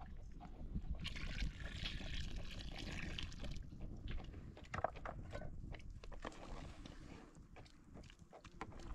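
Liquid poured from a plastic bowl into a cooking pot for a couple of seconds, followed by a metal ladle stirring in the pot with scattered knocks and clinks.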